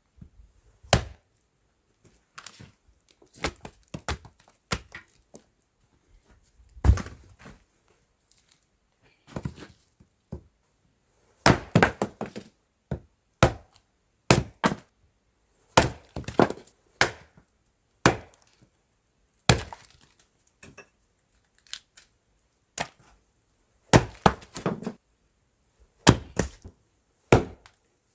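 Wood being chopped and split: a long, irregular series of sharp knocks and cracks, some coming in quick clusters.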